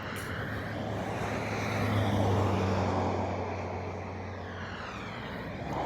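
A passing engine: a steady low hum with rushing noise that swells about two seconds in and then slowly fades.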